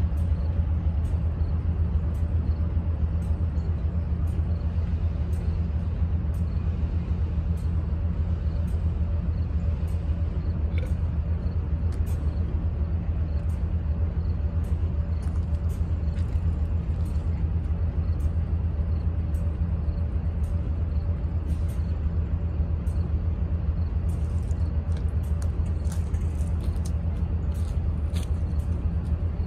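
Diesel locomotive engine idling with a steady low rumble.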